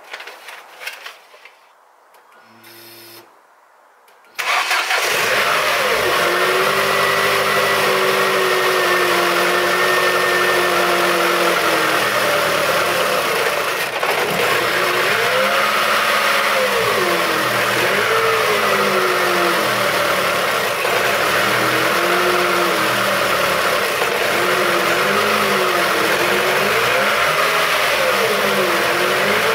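Ford Zetec four-cylinder petrol engine starting about four seconds in, then running steadily and being revved up and down several times.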